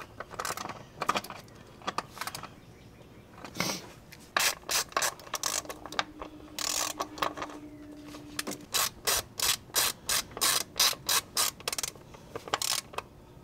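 Hand ratchet driving a socket onto a nut: its pawl clicks a few times at first, then in a quick steady run of about three clicks a second through the second half.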